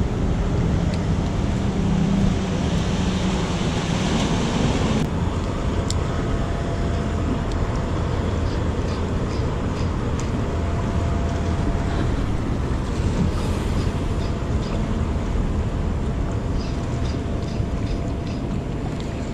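Steady low mechanical rumble with a faint constant hum, typical of a busy port's ships and dockside machinery running. A few light ticks sit over it.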